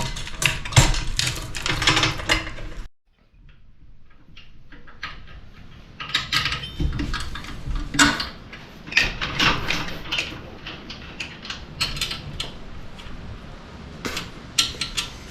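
Irregular metal clanks, clicks and knocks of hand work on engine mount hardware while lining up an engine on its mounts on a test stand. The knocking is loudest in the first three seconds, cuts off sharply, then resumes as scattered quieter clicks and taps.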